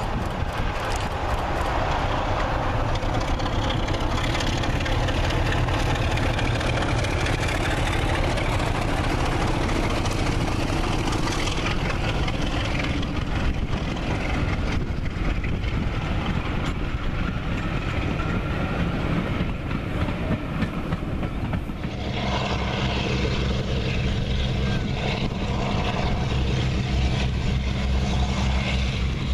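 A Class 33 and Class 24 diesel locomotive pair hauling a passenger train past, engines running under power, followed by the steady rumble and clatter of the coaches going by. About three-quarters of the way through, the sound switches to a pair of Western and Warship diesel-hydraulic locomotives approaching, their engines giving a steady low note with strong even overtones.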